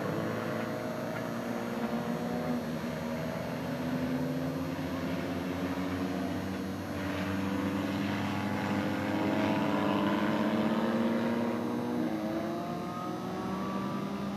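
Engines of several skid plate race cars running on the track, their pitch rising and falling as the drivers rev and lift, over a steady haze of track noise.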